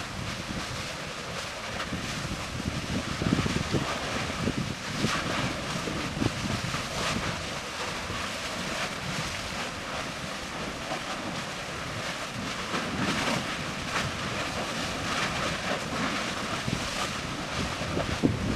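Lava fountaining and spattering on the Erta Ale lava lake: a continuous rushing, surf-like sound broken by irregular splashes, with wind buffeting the microphone.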